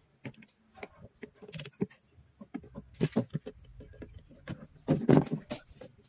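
Scattered clicks and knocks of pliers and a speargun stock with its rubber bands being handled, louder about five seconds in.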